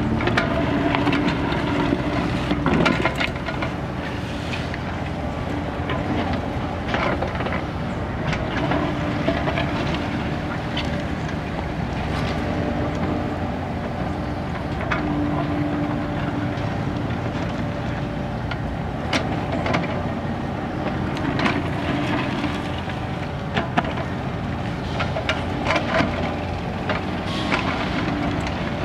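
Kubota mini excavator's diesel engine running steadily under digging load, its hum swelling and easing as the arm and bucket work. Scattered short knocks and scrapes of the steel bucket in soil and stones.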